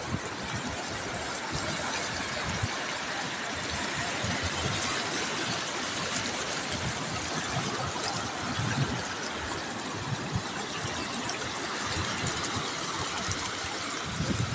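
Surf breaking and washing up the sand: a steady rushing noise, with irregular low rumbles.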